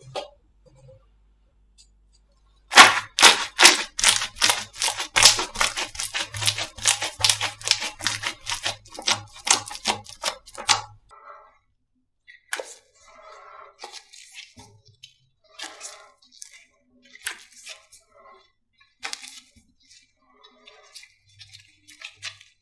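Slime being squeezed and poked by hand. For several seconds it gives a run of loud, fast crackling pops and clicks, then softer, sparser squishes and clicks.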